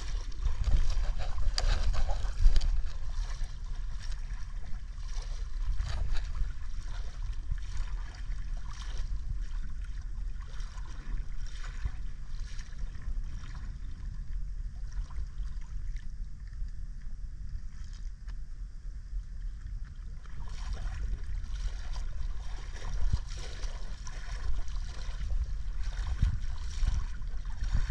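Wind on the microphone, a steady low rumble, over water lapping and splashing around a kayak.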